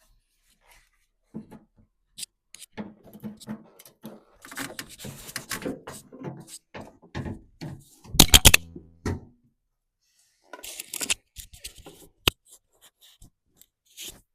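Hands working on a washing machine's drain pump and its parts: a run of clicks, knocks and rattles. The loudest is a clatter about eight seconds in, and a single sharp click comes about twelve seconds in.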